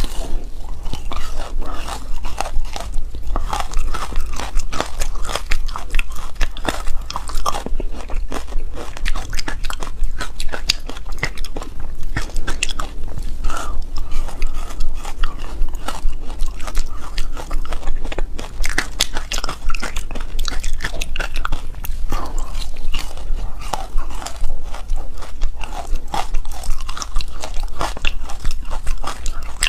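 Close-miked biting and chewing of a frozen, matcha-coated chunk of ice: dense, irregular crunching and crackling as the ice breaks between the teeth.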